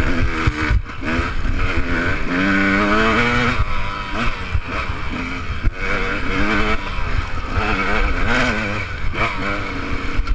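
Enduro dirt bike engine revving up and dropping back again and again, with a low rumble underneath.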